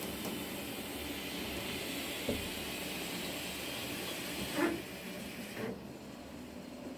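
Steady hiss, with one short, squeaky rising meow from a cat about two-thirds of the way through; the hiss cuts off suddenly soon after.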